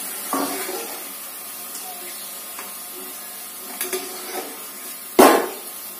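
Hot oil sizzling steadily in a deep kadai as a wire spider strainer lifts fried pieces out. A few light clicks come a little before the end, then one sharp, loud knock about five seconds in.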